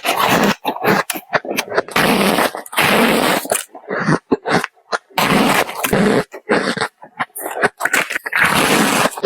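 Close-miked bites and chewing of squeaky ice, an irregular run of loud crunches and squeaks with short pauses between them.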